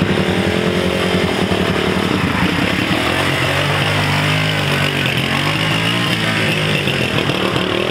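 Small motorcycle engines running close by, one revving as the bike pulls away. The engine note bends in pitch early on, then settles to a steadier note about three seconds in.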